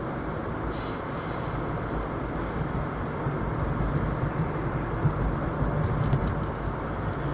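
Steady road noise inside a moving car's cabin: an even rumble of tyres and engine.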